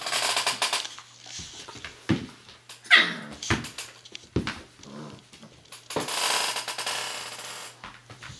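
A Czechoslovakian wolfdog puppy and an adult Saarloos wolfdog vocalising in play: two long raspy growls, one near the start and one about six seconds in, with short yelps and a high rising-and-falling whine around three seconds in.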